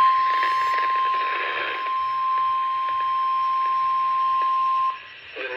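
NOAA Weather Radio warning alarm tone, a single steady 1050 Hz beep over radio hiss, cutting off sharply about five seconds in. It signals that a warning, here a severe thunderstorm warning, is about to be read.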